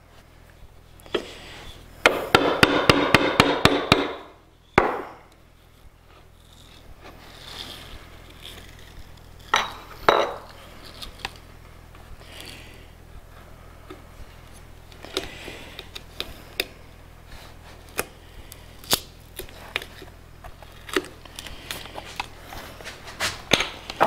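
Hand-tool work on a wooden drawer. About two seconds in comes a short spell of fast, rough strokes with sharp clicks, followed by one loud knock. After that come scattered light clicks and taps of small wood pieces being handled.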